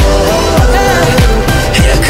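Hip-hop backing track with a heavy, pitch-dropping bass drum about twice a second under held instrumental tones; the rapping has paused.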